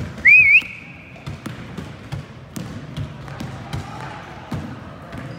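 Basketball dribbled on a hardwood gym floor: a string of irregular bounces. About a third of a second in there is a brief, loud, high-pitched wavering squeal.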